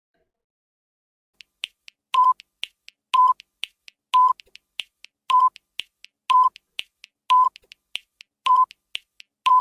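Countdown timer sound effect: sharp ticks about twice a second with a short beep once a second, starting about a second and a half in.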